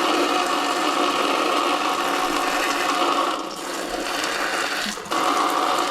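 Clean Camper RV bidet nozzle spraying water into the toilet bowl, a steady hissing spray. It weakens at about three and a half seconds and comes back stronger just after five seconds, as the spray mode or water pressure is changed.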